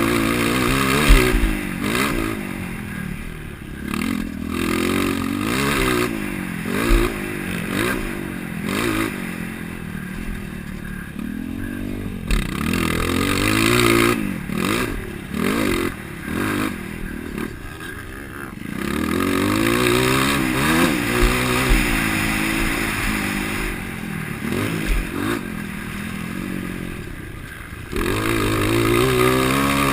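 Motocross bike engine revving hard and backing off over and over, its pitch climbing and falling with the throttle and gear changes, as on a bike being ridden around a dirt track.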